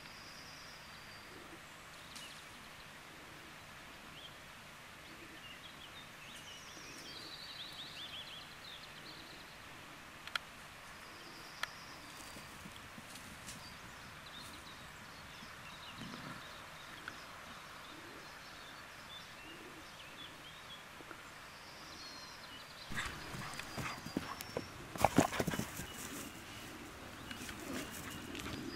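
Dogs galloping close by on dry grass: after a long quiet stretch with a few faint high chirps, a loud run of quick paw thuds and rustling starts about three-quarters of the way in.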